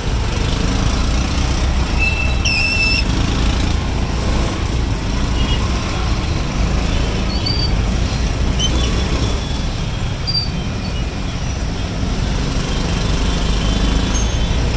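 Auto-rickshaw engine running steadily in slow, dense traffic, with the drone of surrounding motorcycles and cars. A few short, high horn beeps sound, the first about two and a half seconds in and others around the middle.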